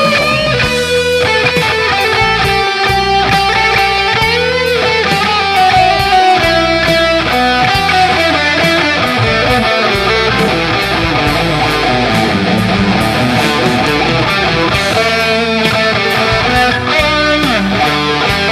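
Rock music led by electric guitar, with some notes bending in pitch, over a steady drum beat.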